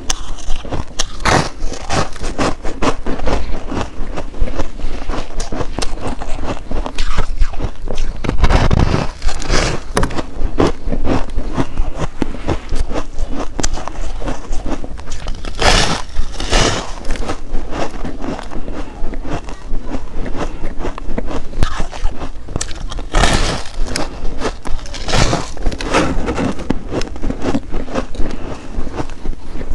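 Shaved ice packed into a block with rose-petal flakes, being bitten and chewed: a dense, continuous crackling crunch, with several louder bites spread through.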